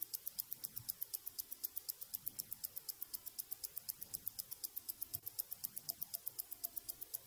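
Rapid, perfectly even watch ticking, about eight sharp ticks a second, over a faint hiss that swells and sweeps in slow waves.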